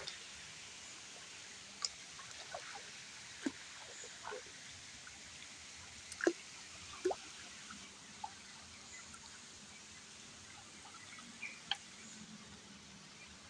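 Shallow stream water disturbed by wading and hands: scattered short drips, plinks and small splashes, the loudest about six seconds in, over a faint steady trickle.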